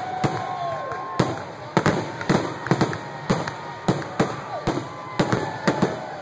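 Aerial fireworks display: shells bursting in a rapid run of bangs, about two a second, with whistling tones gliding up and down between them.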